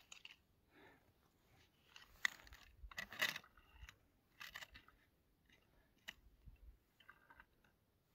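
Faint, irregular crunching, scraping and a few sharp clicks of snow, ice and a winter pike tip-up being handled at an ice-fishing hole, loudest about two to three seconds in.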